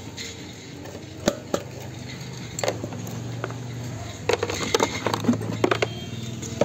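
Scooter seat and under-seat storage being handled: a sharp click about a second in, then a run of plastic knocks and rattles as a helmet is lifted out of the compartment.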